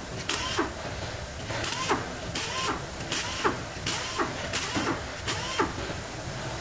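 Repeated mechanical strokes, about two to three a second, each a short rasping burst, over a steady low background noise.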